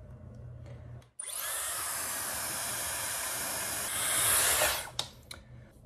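A Dyson hair dryer blowing steadily on wet hair. It starts abruptly about a second in, grows louder shortly before the end, then cuts off suddenly.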